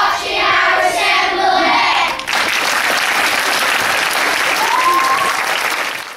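A group of children's voices together, then from about two seconds in a hall audience applauding, with one short rising note over the clapping near the end; it cuts off suddenly.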